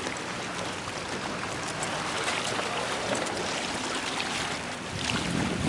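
Steady rush of wind and sea surf, with wind buffeting the microphone more strongly near the end.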